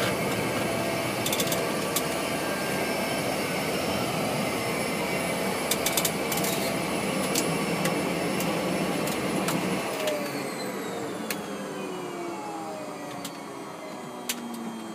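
Small aircraft's engine and propeller running steadily in the cockpit, heard with scattered sharp clicks, then winding down about two-thirds of the way in, its whine and lower tones falling steadily in pitch as the engine is shut down after landing.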